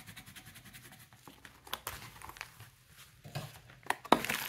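Coloured pencil scribbling on paper in rapid, even back-and-forth strokes that stop about a second in, followed by a few faint clicks. Near the end, louder rustling and knocks as a hard case is handled inside a fabric travel bag.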